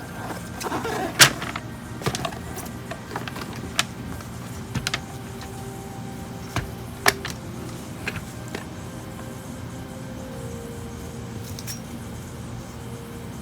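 Scattered clicks and knocks of hands handling the plastic clock and its packaging, the loudest about a second in and a quick run of three near five seconds, over a steady faint hum.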